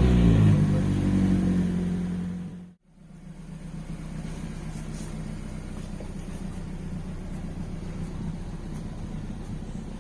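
Honda Civic Si's 1.5-litre turbocharged four-cylinder engine running steadily as the car is pulled out of the garage, fading for the first few seconds. Just under three seconds in the sound cuts off abruptly, then a quieter, steady engine hum carries on.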